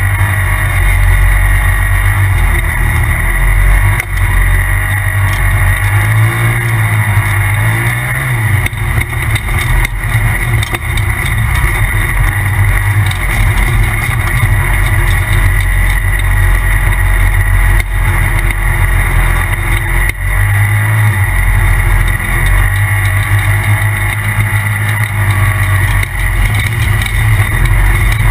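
Polaris RZR Turbo side-by-side driving hard, its turbocharged engine running loud and continuous with the pitch wavering up and down as the throttle changes, and a steady high whine over the rumble.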